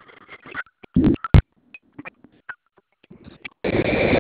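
Loud rumbling and scraping noise from the recording phone's microphone being handled, in two spells: a short one about a second in and a longer one near the end, with scattered clicks between.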